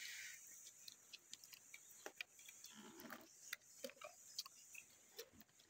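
Near silence with faint, scattered small clicks and ticks of people eating at a table.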